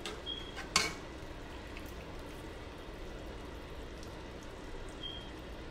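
Alfredo sauce simmering in a pan on the stove, a steady bubbling hiss. A sharp knock, like a utensil on the pan, sounds about a second in.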